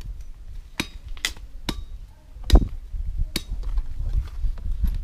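Five sharp knocks of wood being struck, irregularly spaced, the fourth the loudest, as sticks are worked while building a stick bird trap.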